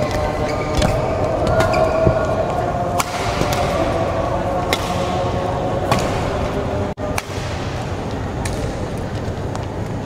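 Badminton rally: rackets striking the shuttlecock with sharp cracks every second or two, with short squeaks of court shoes, over a steady background of a busy sports hall with voices.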